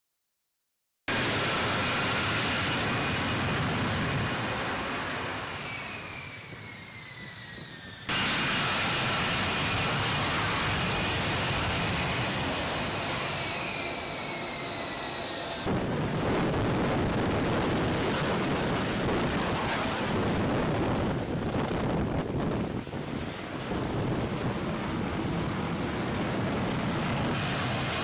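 F-35B jet engine noise, loud and continuous, with a high whine that falls in pitch more than once. It starts abruptly about a second in and changes abruptly twice as separate clips cut into one another.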